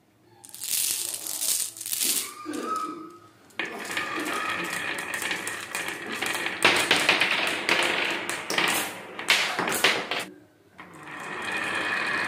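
Glass marbles let go onto a wooden ramp with a wavy groove, rolling down it and clicking against one another and the wood in a dense, rapid clatter. There is a brief lull about ten seconds in, then more rolling and clicking.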